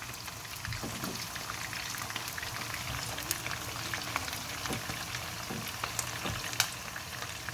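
Cornflour-coated chicken pieces sizzling and crackling as they shallow-fry in hot olive oil, with a few sharp pops and light knocks.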